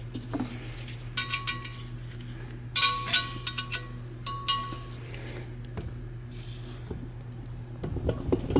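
Steel wrench and hex key clinking against a jam nut and a steel gooseneck clamp as the nut is run down and locked against a set screw, in a few short clusters of sharp metal clicks with a brief ring, over a steady low hum.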